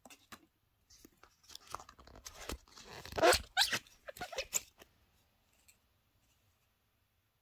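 Handling noise of a cardboard presentation box as a glass perfume bottle is lifted out of its insert: a run of crinkling, scraping and clicking over a few seconds, loudest about three seconds in.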